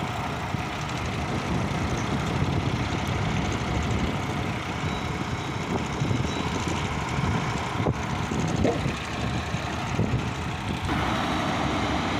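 Diesel engines of crawler-mounted AMECA T-28 track-laying machines running steadily as they move a set of railway points, with a sharp click about eight seconds in.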